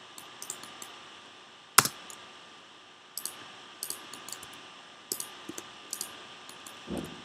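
Computer keyboard keystrokes and clicks tapping in scattered clusters, with one louder sharp click about two seconds in and a short low thud near the end. A faint steady high whine runs underneath.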